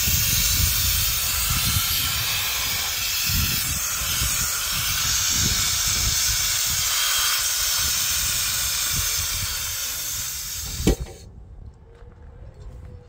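Gas hissing steadily out of the open valve of a steel LPG cylinder, with a low uneven rumble underneath. The hiss stops sharply with a click near the end.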